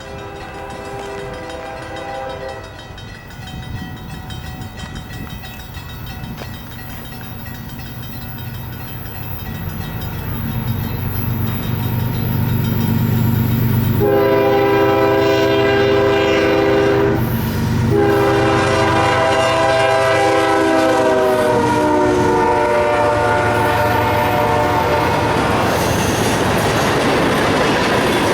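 Union Pacific diesel freight train approaching and passing, its locomotive air horn sounding a chord briefly at the start and then in long blasts through the middle, dropping in pitch as it goes by, over a rising engine rumble. Near the end the cars roll past with a steady clickety-clack rattle.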